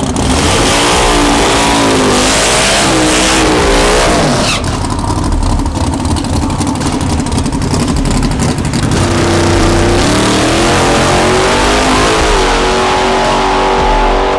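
Drag-racing street car's engine revving hard, its pitch swinging up and down repeatedly over a loud hiss. A rapid crackle runs through it from about four to nine seconds in.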